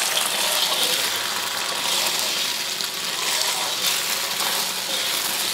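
Beaten eggs sizzling in hot oil in a seasoned wok (kadai), stirred and scraped with a ladle. The hiss is steady throughout.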